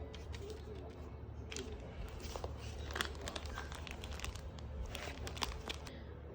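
Rustling and crinkling handling noises, a dense run of small clicks and crackles, over a low steady hum.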